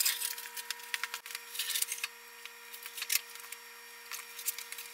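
Scattered light knocks, clicks and scrapes of the cast-iron milling-machine saddle and the wheeled shop crane as the saddle is eased onto the knee, over a faint steady hum.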